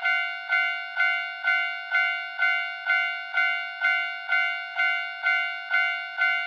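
Japanese railroad crossing warning bell ringing its "kan-kan" alarm, evenly about twice a second, each ringing strike fading before the next: the signal that a train is approaching.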